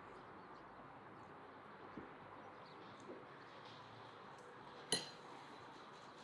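A metal teaspoon stirring in a small glass of tea: a couple of soft taps, then one sharp ringing clink of spoon on glass near the end.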